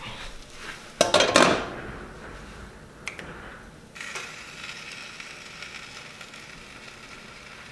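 A brief loud clatter about a second in, then from about four seconds a steady sizzle as a tortilla is laid onto egg frying in a hot pan.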